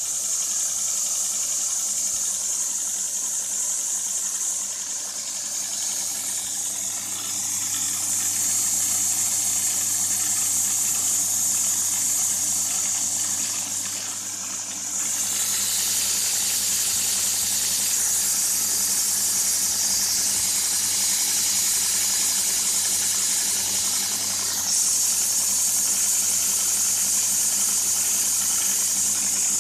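2x72 belt grinder running: a steady motor hum under a loud hiss from the abrasive belt. The hiss eases off briefly a couple of times and grows louder near the end.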